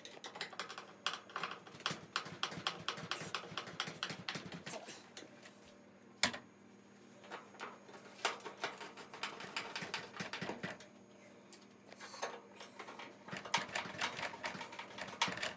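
Hand screwdriver driving screws into the metal front panel of a front-loading washing machine, a rapid run of clicks in three stretches as each screw is turned, with one sharp knock about six seconds in.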